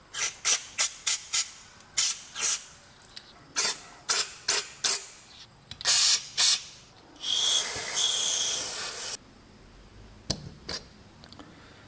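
Short hissing blasts of spray, about a dozen in quick succession, then one longer spray lasting about two seconds with a faint whistle in it, as carburetor parts and jets are blown clean. A couple of light clicks follow near the end.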